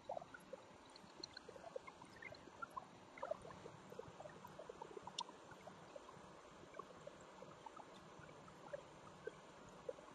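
Near silence: a low hiss with faint, scattered ticks and crackles.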